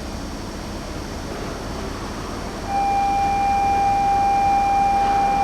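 Steady hum of a train standing at a station platform; about halfway through, a steady electronic departure signal starts abruptly as one unbroken tone and keeps sounding, warning that the train is about to leave.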